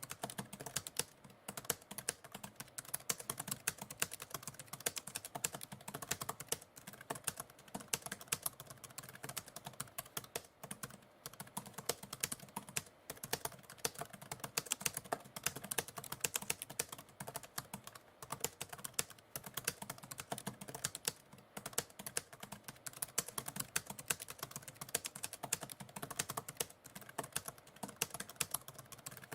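Typewriter keys being struck in a fast, irregular patter of sharp clicks, with short pauses here and there.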